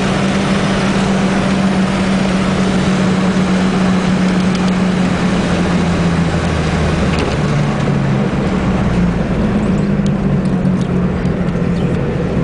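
1990 Honda Accord's four-cylinder engine running hard under way, heard from inside the car along with road and wind noise. Its pitch drops about seven seconds in and climbs again a couple of seconds later.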